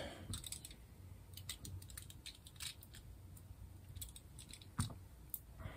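Faint scattered clicks and ticks of small RC drivetrain parts being handled as a hex driver tightens a small screw on a metal drive shaft, with one sharper click about five seconds in.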